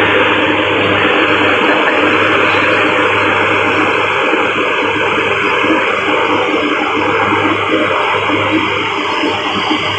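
Turboprop aircraft engines and propellers running at close range: a loud, steady noise with a low hum, fading slightly toward the end.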